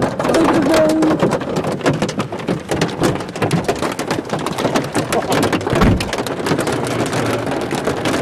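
Heavy rain from a thunderstorm, a dense run of sharp drop impacts over a steady wash of noise, with a low thud about six seconds in.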